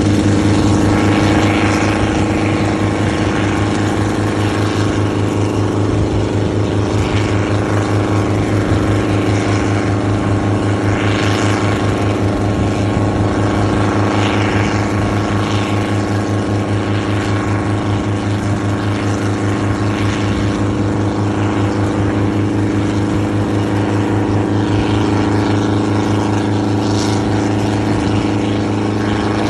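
Schweizer 300-type light piston helicopter running steadily with its main rotor turning, lifting off and hovering low close by. There is a steady engine drone with an even rotor chop, and now and then a brief gust of rushing air.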